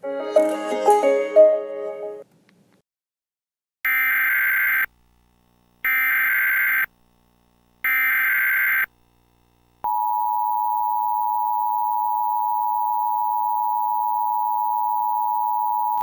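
The last notes of a piece of music, then three one-second bursts of Emergency Alert System SAME header data, a warbling digital screech two seconds apart. About ten seconds in, the steady two-tone EAS attention signal starts.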